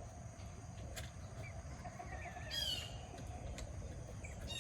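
A wild songbird singing a short phrase of quick descending high notes about two and a half seconds in, starting the phrase again near the end, over steady low background noise.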